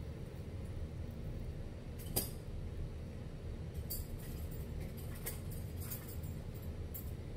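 Light clicks and rustles of long wig hair being lifted and handled close to the microphone, with one sharper click about two seconds in and a cluster of faint ticks between four and seven seconds in, over a steady low background hum.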